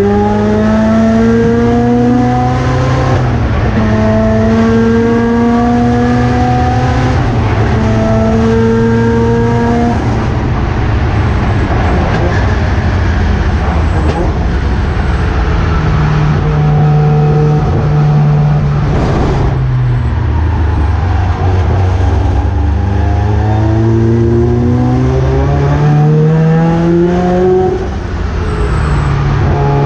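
Race car engine, the 1979 Mazda RX-7's rotary, accelerating hard through the gears. Its pitch climbs and drops back at each upshift, rougher and lower through the middle, then climbs through the gears again near the end.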